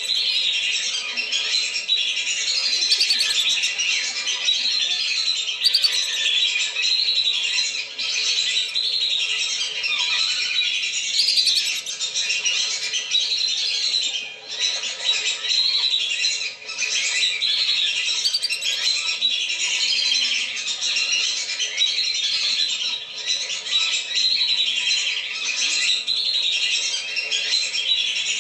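A flock of whistling ducks (belibis) calling continuously: many high whistling calls overlapping without a break, played as a bird-lure call.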